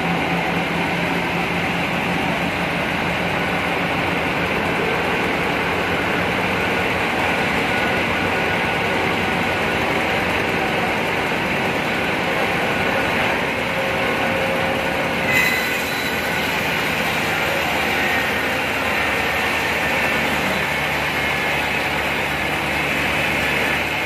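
Band sawmill running steadily, its blade sawing lengthwise through a very large log.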